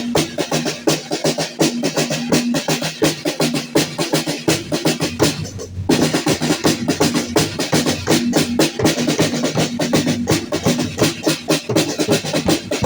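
Drum-led percussion music for a danza de apaches: rapid, dense strikes with a low held note that comes and goes. It breaks off for a moment about five and a half seconds in, then resumes.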